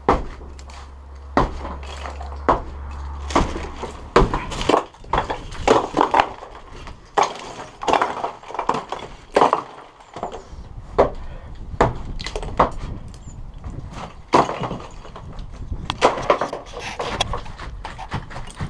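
Bricks knocking and crashing as a brick wall is smashed down: a long run of irregular sharp impacts, a few a second at the busiest. A low steady hum runs under the first four seconds and then stops.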